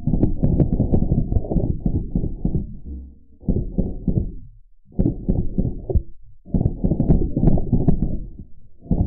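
Slowed-down recording played under slow-motion footage: a deep, muffled rumble with faint ticks, in four stretches broken by short gaps about 3, 4.5 and 6 seconds in.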